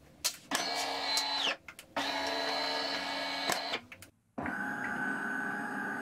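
DeLonghi Magnifica ESAM 4200 bean-to-cup machine's internal pump buzzing in three steady bursts of one to two seconds, with clicks between them. This is the machine switching to steam mode while the steam light flashes, before the light comes on solid.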